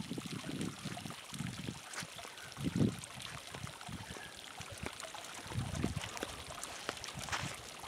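Hot-spring water trickling over travertine rock, with short low rumbles coming and going, the loudest about three seconds in and again near six seconds.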